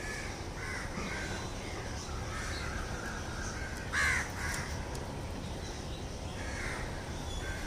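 Crows cawing: a few faint calls and one louder caw about four seconds in, over a steady low background rumble.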